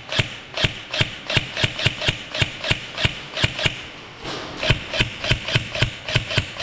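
Airsoft Scorpion Evo replica being fired in quick single shots, each a sharp crack, about three a second. There is a short pause about two-thirds of the way through, then the shots come a little faster.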